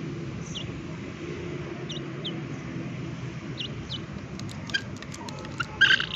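Chickens eating rice from a metal pan: scattered short high chirps, then from about two-thirds of the way in a run of sharp beak taps on the pan and a loud cluck at the very end, over a steady low rumble.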